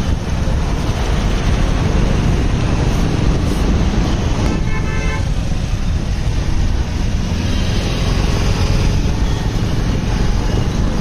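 Road traffic heard from a moving vehicle: a steady low rumble of engines and road noise, with one short vehicle horn honk about four and a half seconds in.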